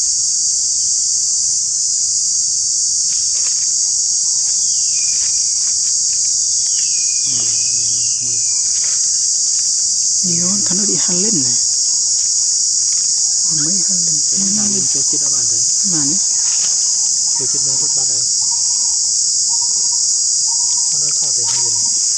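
Loud, steady, high-pitched drone of an insect chorus, unbroken throughout. Low indistinct voices come and go for several seconds in the middle.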